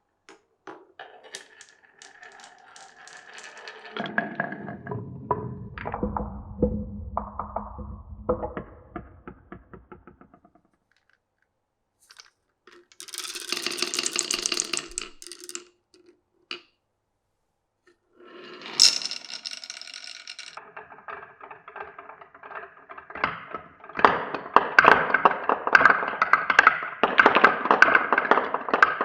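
Marbles rolling and clicking along a marble run's tracks, in several runs with short pauses between. A low rolling rumble comes in the first half, and a dense, loud clatter of many small clicks builds near the end.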